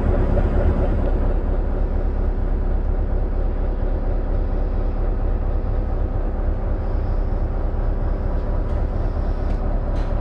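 Steady low drone of a Freshwater class ferry's pair of Daihatsu 8DSM-32 diesel engines, heard from on board, with a few fixed hum tones over the rumble.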